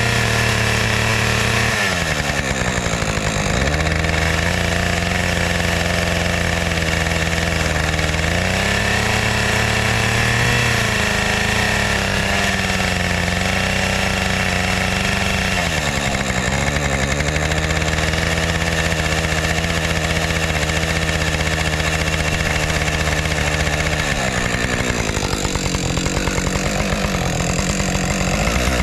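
Husqvarna 550 XP two-stroke chainsaw running at high revs while cutting into a log, its engine speed dipping under load several times and picking back up.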